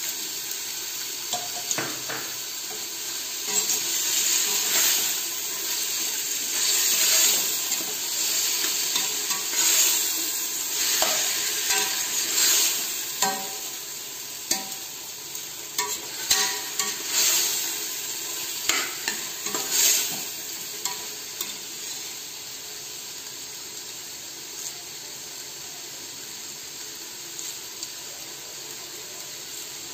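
Onions and tomatoes sizzling in hot oil in a pressure cooker pot while being sautéed, with a metal spatula stirring and scraping the pot in repeated strokes. The stirring stops about two-thirds of the way through, and a quieter, steady sizzle continues.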